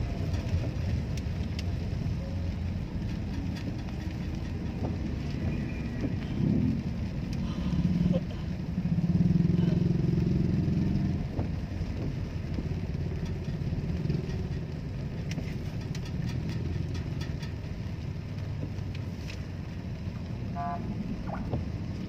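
Road traffic heard from inside a car in rain-slowed traffic: a steady low rumble of engines and motorcycles around it. The rumble grows louder for a few seconds about eight to eleven seconds in.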